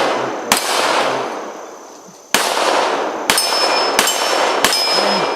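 Pistol shots: one about half a second in, then four more at irregular spacing between about two and five seconds, each sharp crack trailing off in a long echo. A short high ring follows two of the later shots.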